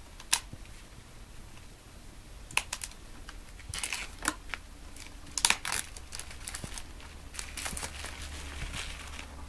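Plastic shrink wrap being peeled off a CD mediabook, crinkling and crackling in irregular bursts, with sharp snaps near the start and about halfway through.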